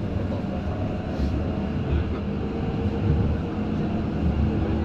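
Inside a moving light-rail tram: a steady low rumble of the wheels rolling on the rails, with a few faint steady hums over it.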